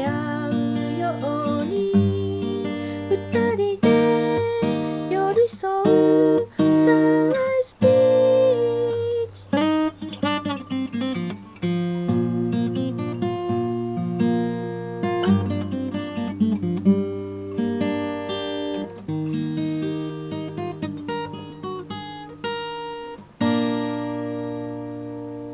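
Steel-string dreadnought acoustic guitar played fingerstyle as a solo arrangement, mixing picked melody notes, bass notes and chords, with a few notes slid up the neck. Near the end a chord is struck and left to ring out and fade.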